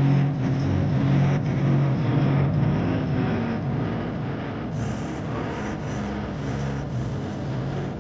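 Bass-heavy music played through a car's speakers from an Android head unit boosted by a pocket amplifier, heard inside the cabin, with sustained low bass notes.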